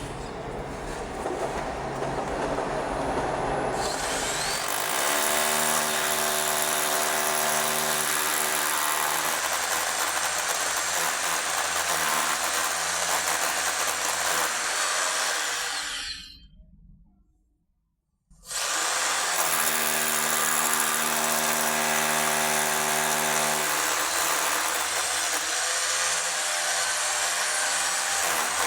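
An electric power tool runs steadily and loudly. About sixteen seconds in it spins down and stops, then starts again sharply about two seconds later and keeps running.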